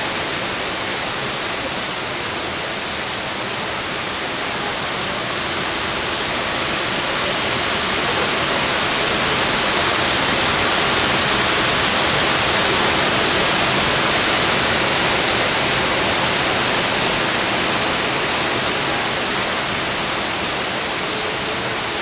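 Steady rush of water from a jungle waterfall and the river below it, a little louder in the middle.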